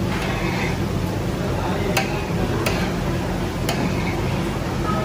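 Metal spatula clicking and scraping on a steel tray as hot sugar syrup is spread and folded, with three sharp clicks in the second half, over a steady low hum.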